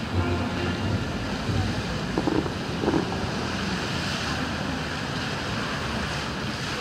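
Water jets of the Bellagio fountain show spraying and splashing onto the lake, a steady rushing hiss, with wind buffeting the phone's microphone.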